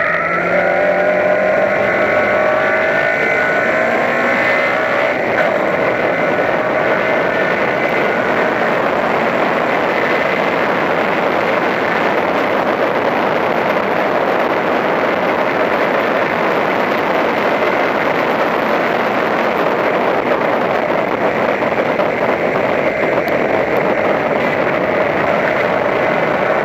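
Toyota Corolla Levin race car's engine at high revs, heard from inside the cabin, its pitch rising in the first few seconds out of a corner. It then holds a steady drone down the straight under heavy wind and road noise.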